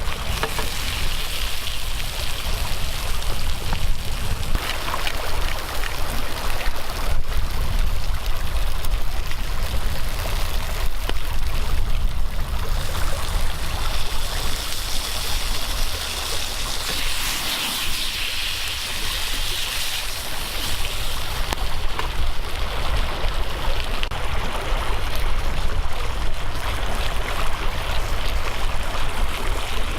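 A mountain stream running steadily, a continuous rush of flowing water with a low rumble underneath.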